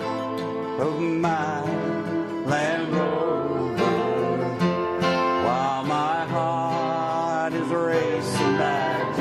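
Country song with acoustic guitar playing as background music.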